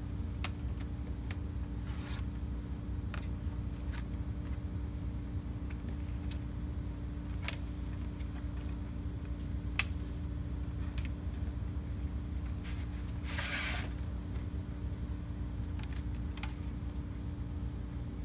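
Light handling noises of a vinyl picture disc and card mat boards being laid into a wooden picture frame on a tabletop: scattered soft taps and clicks, and a brief scrape of board sliding about three quarters of the way through, over a steady low background hum.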